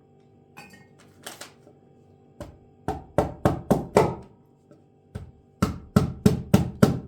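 Cleaver chopping pine cones into pieces on a cutting surface: a run of sharp chops at about four a second, a short pause, then another quick run of chops near the end.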